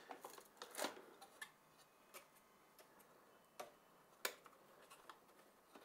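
Near silence broken by a few faint, sharp clicks, the clearest about one second, three and a half seconds and four and a quarter seconds in: small clicks of an SD card extender and its ribbon cable being worked out of their slot in a plastic case.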